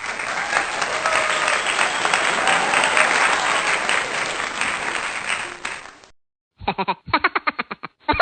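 Crowd applause and cheering that fades out about six seconds in. After a short gap, a new sound begins near the end: a rapid run of short pitched pulses, about five a second.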